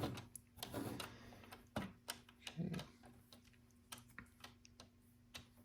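Small plastic LEGO pieces clicking and tapping as they are handled and pressed into place: scattered soft clicks, with a faint steady hum underneath.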